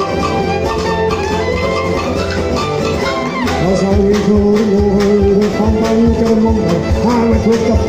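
Live folk band playing on fiddles, guitars and upright bass. A low lead melody at the centre microphone comes in about three and a half seconds in, most likely a man singing.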